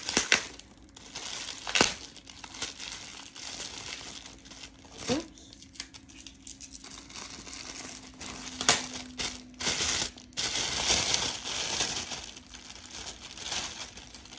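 Plastic packaging crinkling and rustling as a package is unwrapped, with scattered sharp crackles; the crinkling turns dense and continuous near the end.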